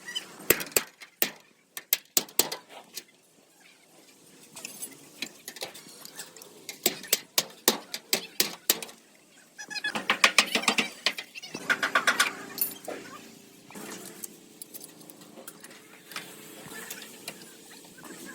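Irregular sharp taps and knocks of tools working on metal, with a denser rattling burst about ten seconds in, then a faint steady hum.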